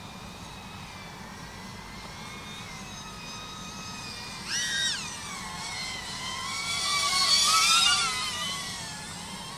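DJI Avata FPV drone's motors and propellers whining, the pitch shifting up and down with the throttle. About halfway through the pitch jumps up sharply, then the whine swells louder and higher with a rush of air before easing off near the end.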